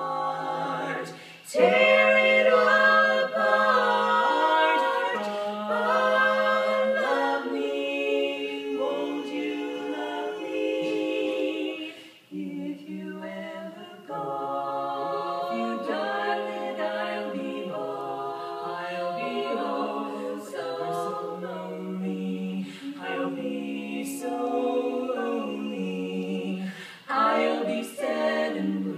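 Female barbershop quartet singing a cappella in four-part close harmony, with short breaks between phrases.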